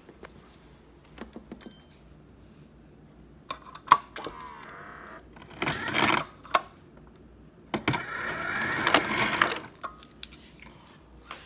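Refrigerator door ice dispenser dropping ice cubes into a glass: two bursts of dispenser motor and clattering cubes, a short one about six seconds in and a longer one of nearly two seconds. A short high electronic beep sounds near the start.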